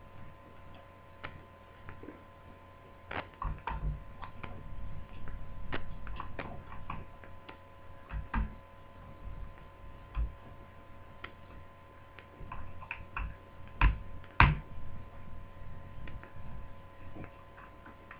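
Irregular small clicks and taps of a screwdriver and hands working screws out of a laptop's plastic base, with two louder knocks close together about fourteen seconds in. A faint steady hum runs underneath.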